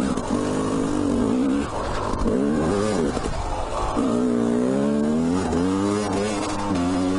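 Yamaha YZ250 two-stroke motocross bike engine running under way, its pitch rising and falling several times as the throttle is opened and closed.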